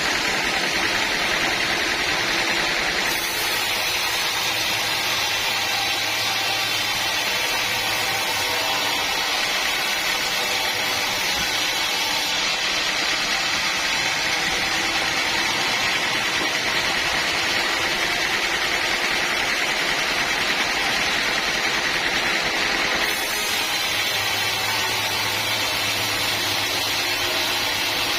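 Band sawmill running steadily, a loud continuous machine noise. The tone shifts abruptly about three seconds in and again near the end.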